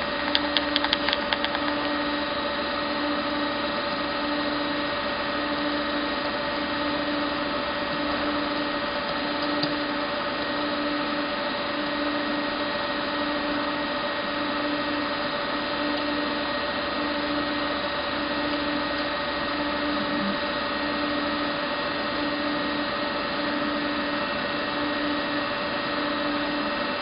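Dörries Scharmann CNC vertical boring mill running: a steady mechanical hum with several constant whining tones and a lower tone that pulses about once a second, with a few quick clicks in the first second or so.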